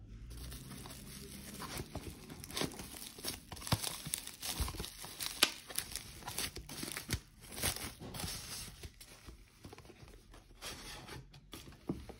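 Plastic bubble wrap crinkling and crackling as it is pulled and unwound from a cardboard watch box, in irregular sharp crackles that ease off near the end.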